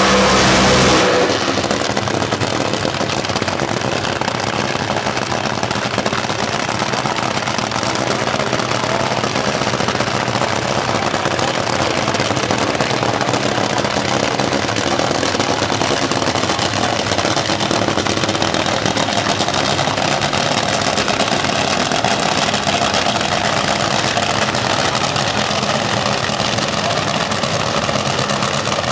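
Nostalgia funny car engine coming off a burnout, its level dropping about a second in, then idling steadily and loudly.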